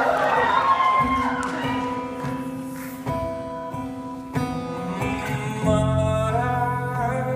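Acoustic guitar played live in a hall, single notes ringing on for several seconds, with a deeper note and further notes joining about three-quarters of the way through.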